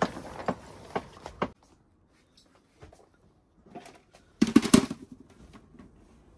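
Handling noise: a few light knocks and clicks, then about halfway through a short loud burst of plastic rustling and clatter as a small plastic waste bin and its bag liner are handled.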